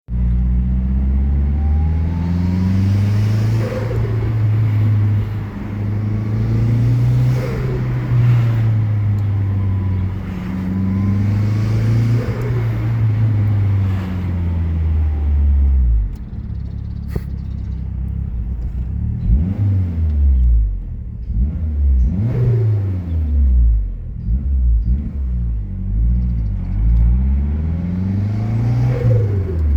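Mazdaspeed 3's turbocharged 2.3-litre four-cylinder engine with its K04 turbo, revved up and let off again and again, with turbo flutter on lift-off. The revving comes in slow rises and falls about every four seconds at first, then in quicker blips in the second half. The owner says it is not supposed to flutter and blames the blow-off valve.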